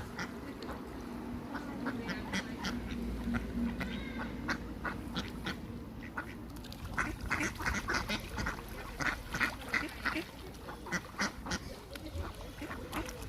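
Ducks quacking: a run of many short, repeated quacks, coming thicker and faster from about halfway through.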